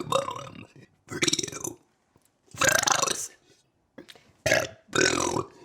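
A woman burping, a run of about five separate long, voiced burps, each under a second, with short pauses between.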